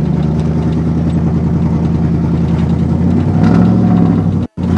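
Ford F-150 pickup's engine running as the truck drives across the field, building to a rev about three and a half seconds in. The sound drops out for an instant near the end.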